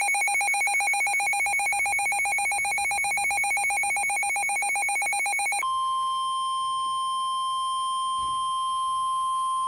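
Weather radio sounding an emergency alert: a rapidly pulsing electronic beep, about a dozen pulses a second, for the first five and a half seconds. It then switches to the steady single-pitch NOAA Weather Radio warning alarm tone, which announces that a warning message is about to be read.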